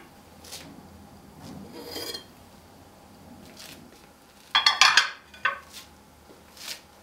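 A spatula stirring and scraping thick brownie batter in a stainless-steel bowl, then, about two-thirds of the way through, a quick clatter of hard knocks as a parchment-lined glass baking dish is set down on a board, the loudest sound, followed by a couple of lighter knocks.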